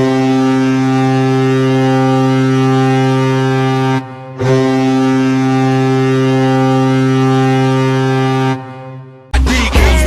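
Colorado Avalanche goal horn sounding two long, steady blasts: the first lasts about four seconds, then a short break, then a second of about four seconds that fades out. Music kicks in just before the end.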